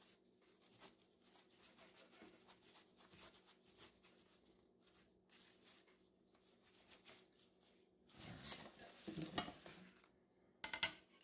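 Paper towel rubbed over a glass sheet, wiping it clean. The rubbing is faint at first, with louder scrubbing strokes about eight seconds in and a short, sharp rub near the end.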